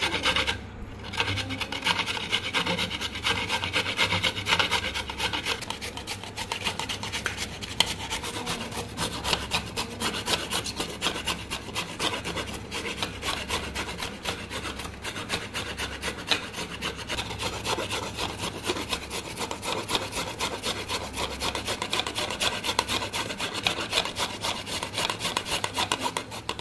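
A carrot being grated on a small flat metal hand grater, with repeated rasping strokes of the carrot against the grater's teeth.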